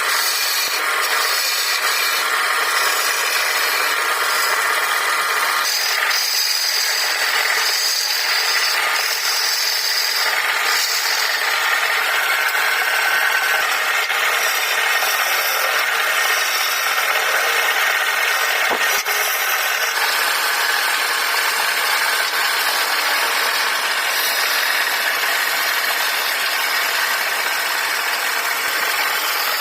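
Wood lathe running while a cutting tool scrapes the spinning wood, a steady, unbroken sound.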